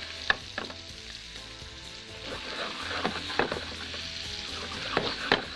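Kofta meatballs frying in butter and oil in a pan: a steady sizzle with a few sharp clicks and knocks as the pan is shaken on the burner to keep them from sticking.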